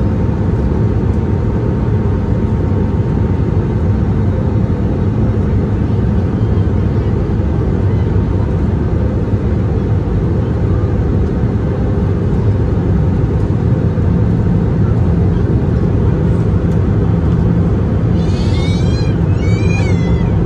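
Airbus A320neo cabin noise at a window seat beside the engine: a steady, low roar of engine and airflow during the descent. Near the end come two short, high-pitched swooping sounds.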